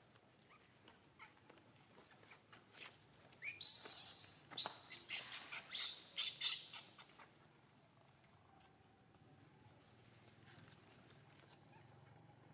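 Baby monkey crying: a run of high-pitched shrieks and squeals, one sliding sharply upward, from about three and a half to seven seconds in.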